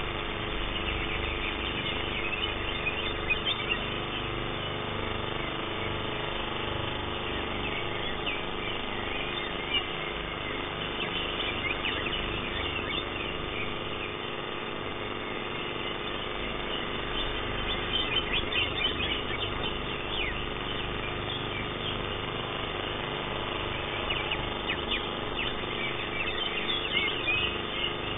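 Cucak hijau (green leafbirds) singing in several bursts of rapid, high chirps and trills, over a steady hum.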